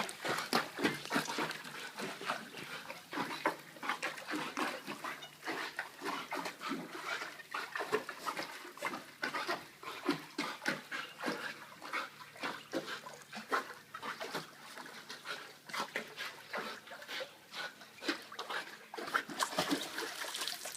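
Dog breathing hard through its nose and mouth as it swims, in quick irregular huffs several times a second.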